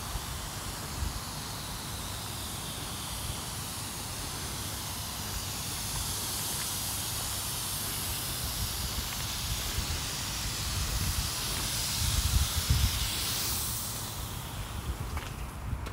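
A steady hiss that grows louder through most of the stretch and fades out about two seconds before the end, over uneven low rumbling.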